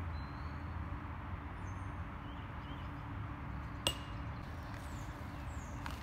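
A putted disc golf disc strikes the metal chain basket with a single sharp clink and a brief metallic ring, about four seconds in, over steady outdoor background noise.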